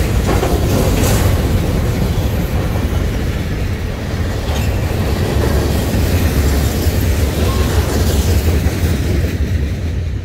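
Freight train rolling past: a steady low rumble of the moving cars, with occasional clacks of the wheels over the rail joints.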